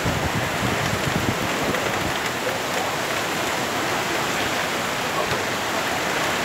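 Heavy rain pouring steadily in a windstorm, an even hiss of falling water.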